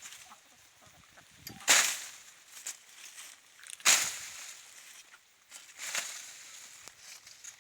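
A digging tool chopping into the ground and a clump of galangal rhizomes: three hard strikes about two seconds apart.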